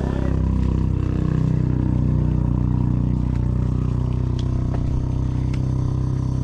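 An engine running steadily with an even low drone.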